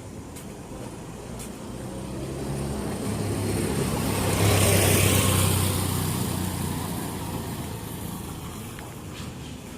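A motor vehicle driving past: its engine and tyre noise grow louder to a peak about halfway through, then fade away.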